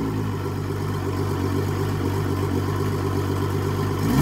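Evinrude E-TEC 200 H.O. two-stroke V6 outboard idling steadily, running out of the water on flushing muffs with a garden hose feeding its water intake.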